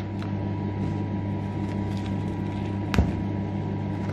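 Steady low electrical hum throughout, with faint crinkling as tea bags are handled and one sharp tap about three seconds in.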